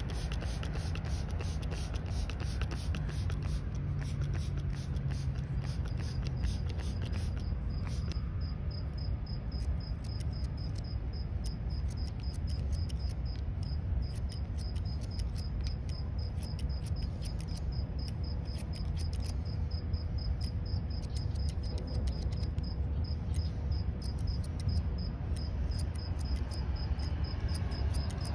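Steel hair-cutting scissors snipping hair over a comb, a rapid run of crisp snips that is densest in the first several seconds and thins out after. From about six seconds in an insect chirps in a steady fast pulse, about three a second, over a low steady rumble.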